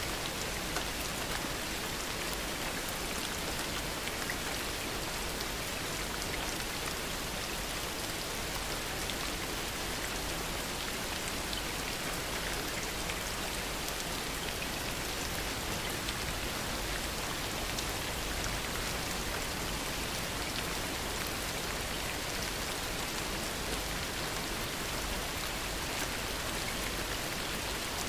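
Steady heavy rain, a dense even hiss with many small drop ticks, with no thunder.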